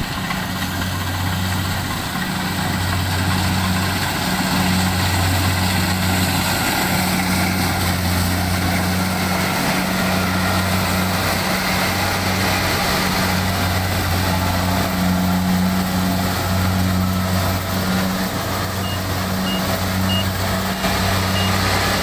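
Compact rice combine harvester running steadily as it cuts standing ripe rice: a continuous low engine drone under the noise of the working header.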